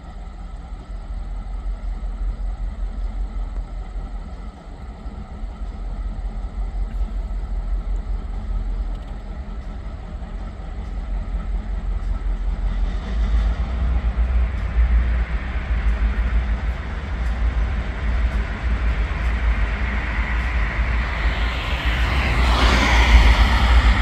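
Two diesel locomotives approaching, heading a passenger train: a low engine rumble that grows steadily louder as they near, with rising wheel-on-rail noise and a louder rushing swell just before the end.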